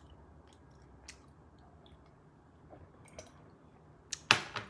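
Faint mouth sounds of a man drinking from a mug: small wet clicks of sipping and swallowing, then a louder short noise near the end.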